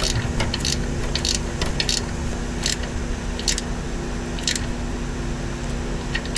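A wrench clicking against the half-inch end fitting of a steel-braided oil pressure gauge line as it is tightened into the engine block: short, sharp metal clicks every half second to second, thinning out toward the end, over a steady low hum.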